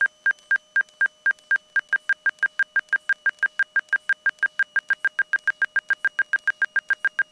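Angle-of-attack stall-warning beeper sounding a repeated single-pitch beep, about four a second at first and quickening to about five a second around a second and a half in. The quickening beeps signal the wing's angle of attack rising toward the stall.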